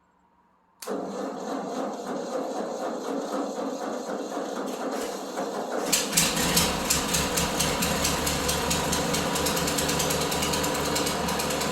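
Ford 8N tractor's engine being cold-started: the starter cranks it with a rhythmic churn for about five seconds, then the engine catches about six seconds in and keeps running, louder.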